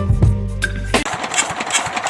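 Music with steady bass notes and a drum beat cuts off about a second in. It gives way to an engine running with an irregular clatter, most likely the fire truck's.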